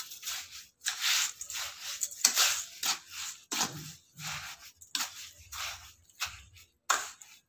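Metal spoon stirring damp semolina and sugar in a stainless steel bowl: a row of short scraping strokes, about two a second.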